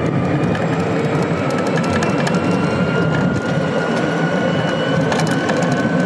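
Club Car Precedent golf cart driving on pavement and picking up speed: steady road and wind noise with a faint whine that rises slowly in pitch. A few light clicks or rattles come near the end.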